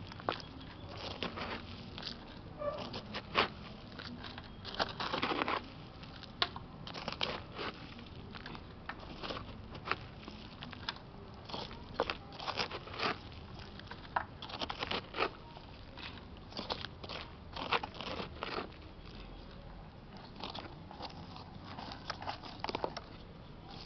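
A small hand tool digging and scraping through dry potting soil in a pot: irregular crunching and scratching strokes as the soil and dry roots are loosened, with a few longer scrapes among them.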